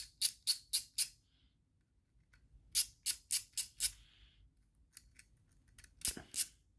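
Runs of sharp, bright clicks, about four a second, in three bursts, as a small T6 Torx driver backs screws out of a folding knife's scales; the screws are loose and turn out easily.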